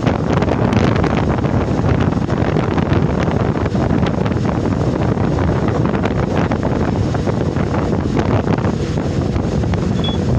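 Storm wind at sea blowing hard across the microphone: a loud, steady rush with constant crackling buffets, and the noise of the ship and waves beneath it.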